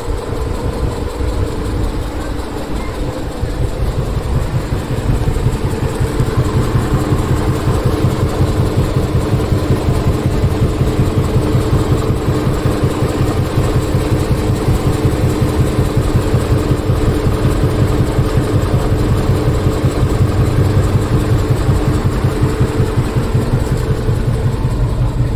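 A large truck's diesel engine running steadily, growing a little louder about five seconds in.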